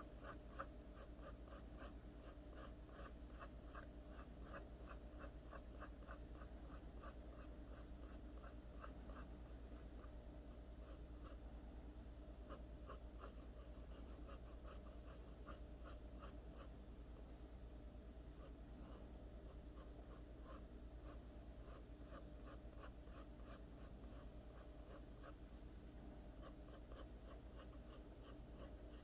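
Pencil strokes on drawing paper, faint, quick and short, a few per second, as hair lines are drawn.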